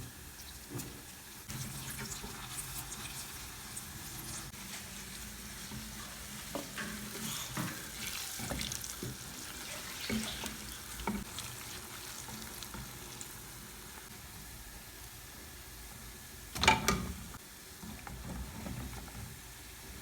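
Kelewele (spiced plantain pieces) frying in hot oil: a steady sizzle with scattered clicks and scrapes of stirring. Near the end a short, loud burst stands out above the frying.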